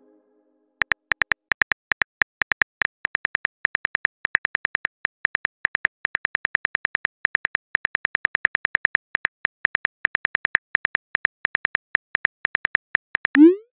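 Phone keyboard typing clicks from a texting app, a rapid run of short taps several a second as a message is typed out. Near the end they give way to a short rising swoosh as the message is sent.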